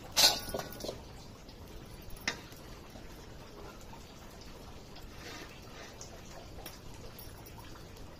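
A steel pan clanks against the metal plate of a wood-fired stove just after the start, with a short ring and a few lighter knocks, then one more knock about two seconds in. Between them, faint ticking from the burning wood.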